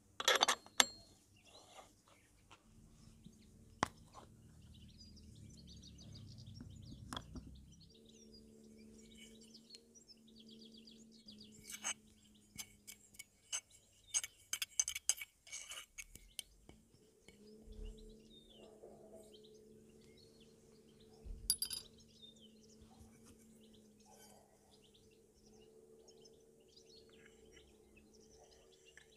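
Metal clinks and taps from scooter variator and torque-driver parts being handled and fitted: a sharp cluster right at the start, a run of clinks in the middle and one more later. Faint bird chirps and a low steady hum sit underneath.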